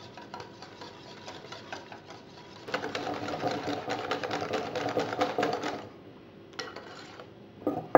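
Wire whisk beating batter in a glass bowl: a fast, rhythmic clatter of the tines against the glass, faint at first and much louder for about three seconds in the middle, then stopping, with a couple of separate clinks near the end.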